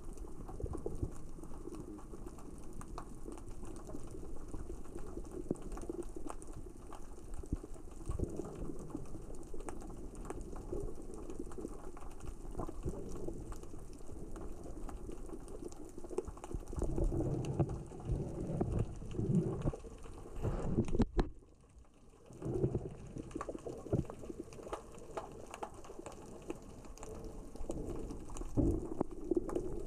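Underwater sound of small rocks rolling and knocking against each other across the sea floor as the current and tide move them: a continuous crackle of clicks over low rushes of moving water. It drops away briefly about two-thirds of the way through.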